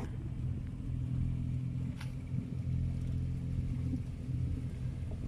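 Kubota KX019-4 mini excavator's three-cylinder diesel engine running steadily while its arm holds a steel formwork panel, with one sharp metallic click about two seconds in.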